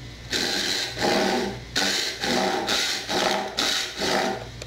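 Hand saw cutting the shoulders of a tenon in wood, with about seven even push-and-pull strokes, roughly one and a half per second.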